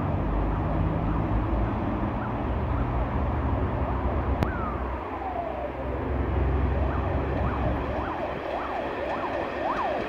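ChS7 electric passenger locomotive passing with its train: a steady low rumble. A sharp click comes about four and a half seconds in, followed by a squeal falling in pitch. Then, over the second half, repeated short squeals rise and fall.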